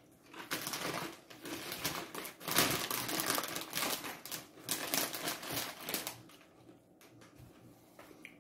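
Crunching and chewing of paper-thin, airy hummus crisps: a dense run of crackly crunches that dies away about six and a half seconds in.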